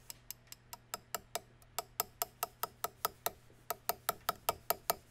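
Light, rapid hammer taps on a punch set against a firing pin, about five taps a second, growing louder in the second half. The punch bounces off the pin, a sign that the firing pin is stuck hard in its hole.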